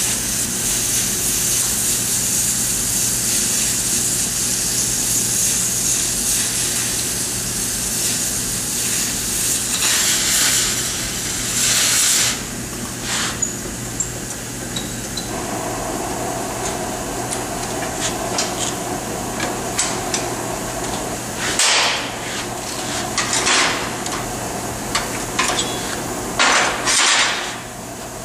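Oxy-acetylene cutting torch hissing steadily as it cuts through 1/8-inch steel plate. After about twelve seconds the cutting hiss eases, and in the last several seconds come a handful of sharp metal clanks as the cut-out steel disc is knocked and pulled free.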